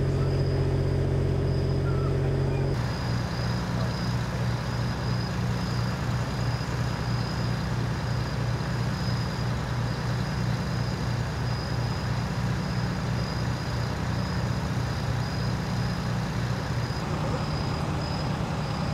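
Vehicle engines idling steadily, a low hum with a thin high whine above it. About three seconds in it changes abruptly to a different idling engine with a regular low throb.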